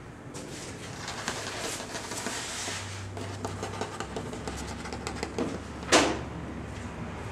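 Small scuffs and scratches of a kitten moving about on a tabletop close to the microphone, with one sharp knock about six seconds in, the loudest sound. A low steady hum runs underneath from about three seconds in.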